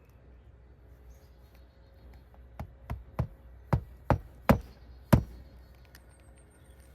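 A hammer driving a roofing nail through an asphalt shingle: about seven sharp blows over three seconds, the first ones light and the later ones louder.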